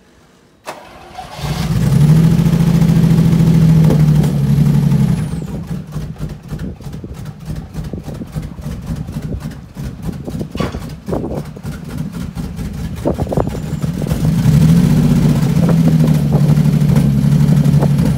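1971 Jaguar E-Type Series 3 5.3-litre V12 being started after long storage in a barn: a click, then it catches about a second in and runs at a raised idle. Around five seconds in it drops to a lower, uneven idle, and it rises again near the end.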